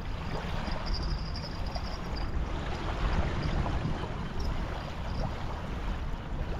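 Wind buffeting the microphone in a steady low rumble, over small waves lapping at the shore.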